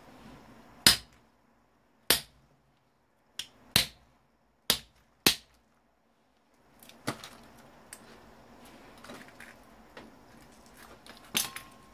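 Sharp tool strikes on the parts of an old monitor being broken apart for its copper: six loud knocks about a second apart, then quieter clicks and handling noise, with one more loud knock near the end.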